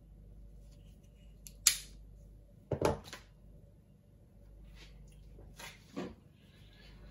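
A sharp snip from side cutters cutting once, followed a second later by knocks of the cutters and cable being set down on a wooden workbench, and two lighter knocks near the end.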